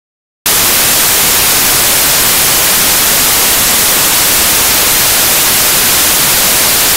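Loud, steady hiss of static that starts abruptly about half a second in after dead silence, strongest in the high end, with no tone or rhythm in it. This is the empty audio channel of an analog FPV video receiver, recorded by the goggles' DVR.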